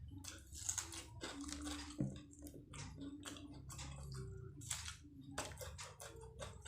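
Close-up mouth sounds of a person biting and chewing egg martabak (fried stuffed pastry) with bird's eye chilies, with many irregular sharp clicks and crackles from the chewing.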